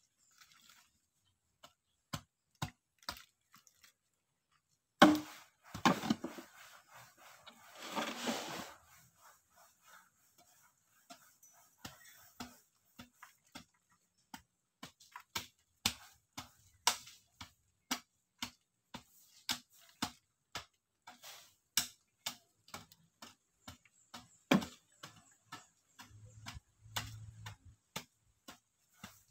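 A hoe chopping and scraping into soil, sharp irregular hits about one or two a second. The loudest knock comes about five seconds in, and a longer scraping rush follows a few seconds later.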